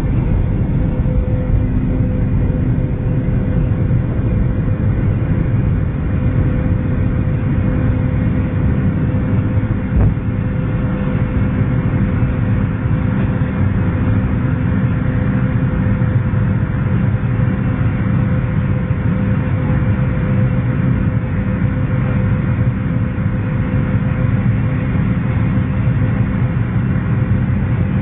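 Airliner engines and airflow heard from inside the passenger cabin during the takeoff climb: a loud, steady rumble with a constant hum. A single short knock about ten seconds in.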